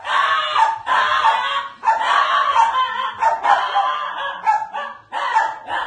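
Small white long-haired dog barking over and over, about eight drawn-out barks in a row with short breaks between them.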